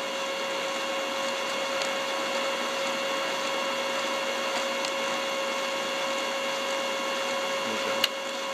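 Brother 7820 printer's drive motor and gear train running through a copy job, a steady whine with a few light clicks and a sharp click near the end.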